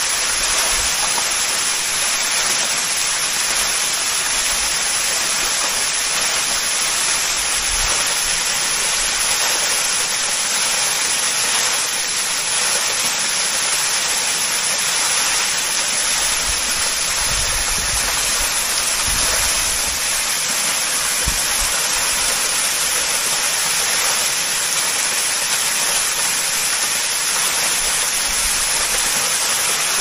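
Water pouring down a tall three-tiered waterfall, about 72 m high: a steady, even rush with no break.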